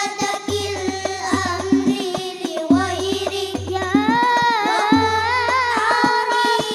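An Al Banjari ensemble performing sholawat: children sing a winding devotional melody through microphones and loudspeakers over terbang (rebana) frame drums. The drums play a steady, busy pattern of sharp slaps and recurring deep bass strokes.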